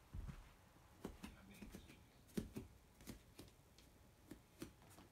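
Near silence: room tone with about eight faint, scattered light clicks and taps.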